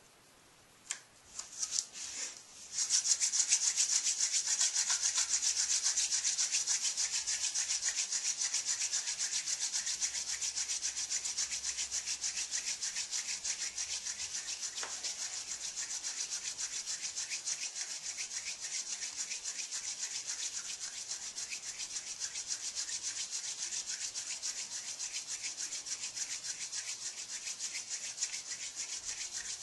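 Hand drill friction fire: a red osier spindle spun back and forth between the palms, grinding into a cedar hearth board, a dry scratchy wood-on-wood rubbing in a fast, even rhythm. It starts about three seconds in after a few light knocks, loudest at first, then a little softer. It is the sound of drilling the hearth toward smoke and an ember.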